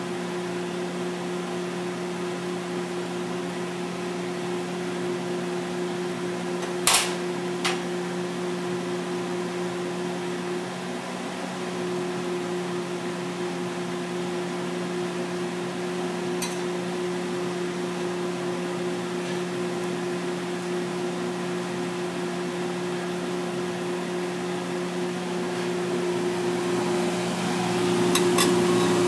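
Steady hum of a kitchen appliance fan. A metal spoon clinks sharply against the crepe pan twice about seven seconds in, once more later, and a few times near the end.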